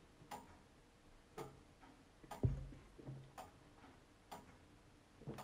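A clock ticking steadily, about once a second. About halfway through there is a single heavier, dull knock as a drinking glass is set down on a cork coaster.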